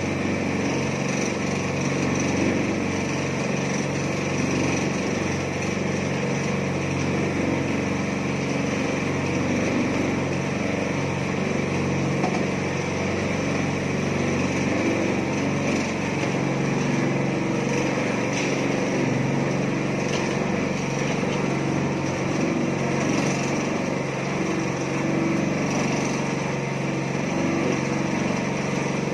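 Small petrol engine of a mini concrete mixer running steadily at a constant speed.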